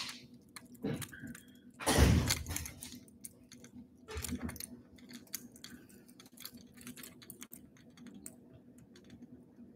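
Small clicks and rustles of hands working fishing line and a lure while tying a knot, with a louder thump about two seconds in and smaller bumps near one and four seconds. A faint steady hum runs underneath.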